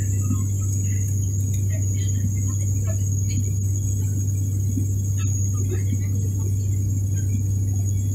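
ATR 72 turboprop cabin noise in flight: a steady low propeller drone with rushing air noise and a thin, constant high whine above it.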